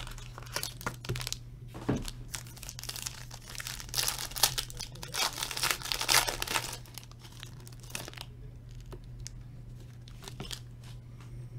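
Gold foil wrapper of a trading-card pack being torn open and crinkled by hand. The tearing and crinkling are densest and loudest in the middle, then ease to lighter handling with scattered clicks.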